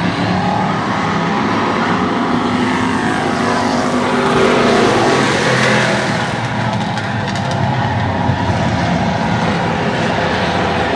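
A pack of street stock race cars running laps with engines at full song. It grows loudest as the cars pass about halfway through, their engine pitch dropping as they go by.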